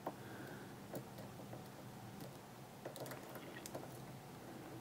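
A few faint, irregular clicks of a hook pick working the pins inside a Sargent pin-tumbler lock, under tension from a tension wrench.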